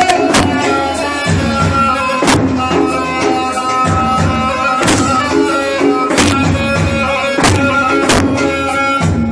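Mijwiz, the double-pipe reed instrument, playing a continuous melody in held notes over drum accompaniment, with sharp drum strokes about once a second.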